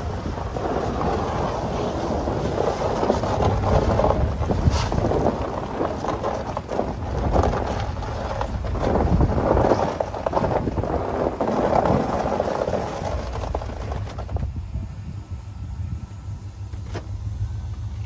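Riding in a vehicle over a snowy track: a low engine rumble and wind buffeting the microphone. About three-quarters of the way through, the rushing noise drops away and only a low steady hum is left.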